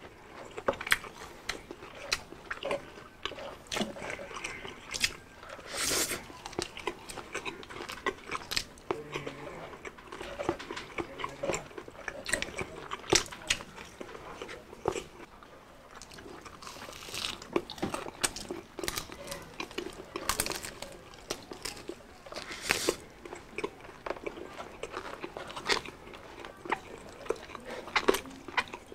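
Two people chewing and biting into crispy fried food, deep-fried pork belly with crackling skin and fried chicken fillet, with many sharp, irregular crunches.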